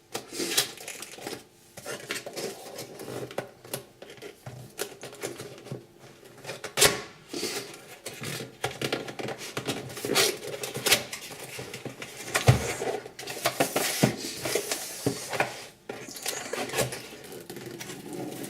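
A cardboard keyboard box being opened and its packaging handled: irregular rustling and scraping, with scattered knocks and clicks.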